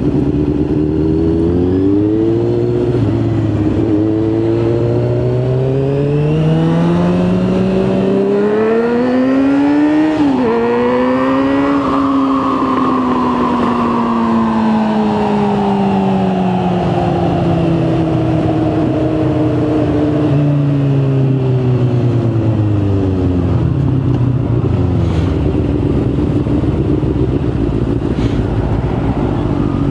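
Motorcycle engine heard from the rider's seat, pulling away and accelerating through the gears: its pitch climbs in steps with short breaks at the shifts, tops out a little before halfway, then falls in one long slow slide as the bike slows and settles to a lower, steadier note. Wind noise runs under it throughout.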